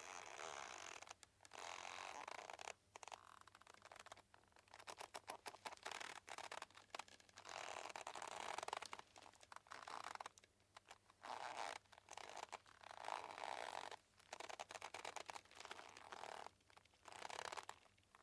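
Boat rope creaking, faint: a run of grating creaks, each lasting one to a few seconds, with short breaks between.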